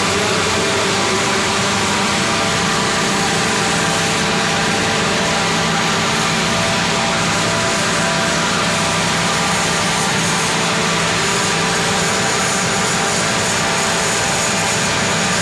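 Air compressor running steadily: a loud, even mechanical hum over a constant hiss, with no change in pace.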